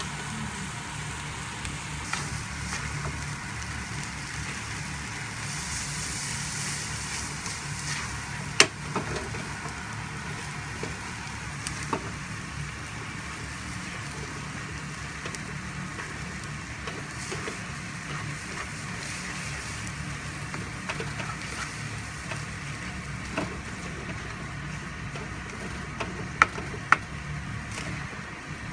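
Cabbage, egg and glass noodles sizzling in a frying pan as they are stir-fried and tossed with a slotted spatula, with a steady low hum underneath. A few sharp knocks of the spatula against the pan, the loudest about a third of the way in and two more near the end.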